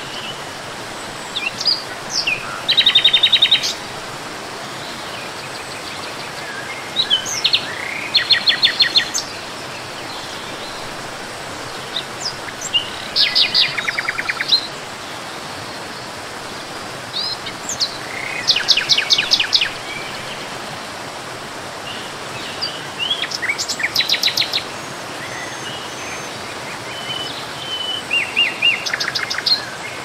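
A songbird sings short phrases about every five seconds, each a quick run of rapidly repeated high notes, over a steady rush of falling water from a forest waterfall.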